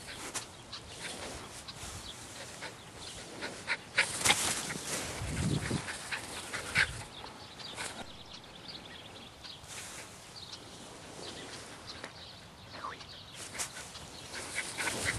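Rat terrier panting after a run, with rustling and crackling from the grass.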